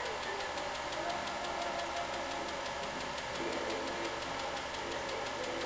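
8mm home-movie projector running: a rapid, even mechanical ticking from the film transport over a steady, slightly wavering motor hum.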